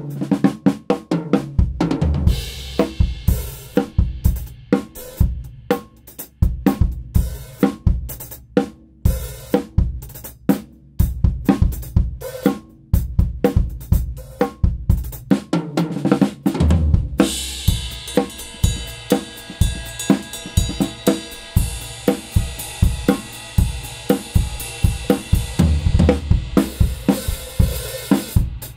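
An acoustic drum kit played solo in a steady groove, an unprocessed recording: kick drum, snare and cymbals struck in a dense pattern. A little over halfway through, after a brief break, the groove changes and cymbals ring continuously over the kick and snare.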